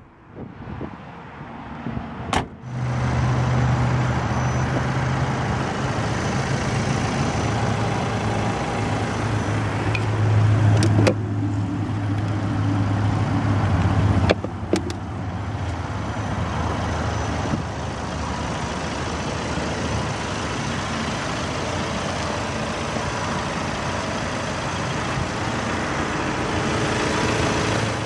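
A motor vehicle engine running steadily at idle, a low hum, with a few sharp knocks: one just after the start, one about two and a half seconds in, and another about fourteen seconds in.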